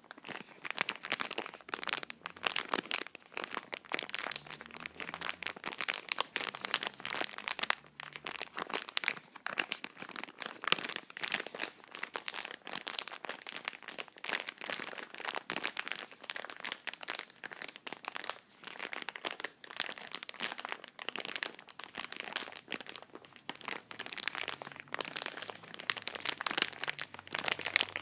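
Packaging being crinkled and scrunched by hand: a dense, continuous crackle with a few short pauses.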